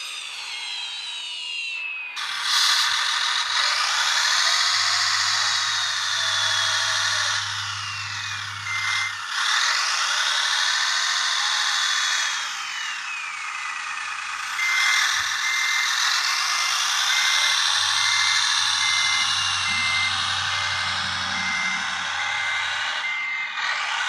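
Electric drive motors and gearboxes of radio-controlled scale construction models whining, the pitch sweeping up and down as the machines speed up and slow down, with a low engine-like hum that comes and goes. An electronic reversing beeper sounds briefly a little before halfway and then beeps steadily through most of the second half.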